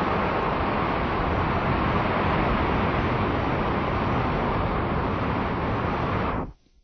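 Slowed-down recording of sea animals chattering, heard as a dense, steady noisy wash without distinct calls. It cuts off suddenly near the end.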